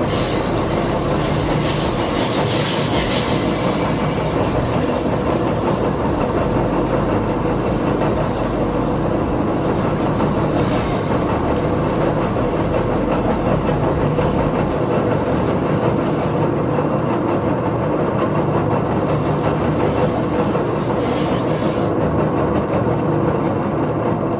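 A power woodworking tool runs steadily, with a continuous loud grinding hum, as a wooden skateboard deck is shaped and sanded.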